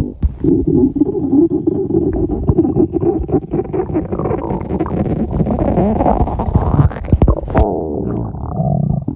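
Stomach growling: a long, continuous gurgling rumble with many small pops, rising in pitch for a stretch about six to seven seconds in.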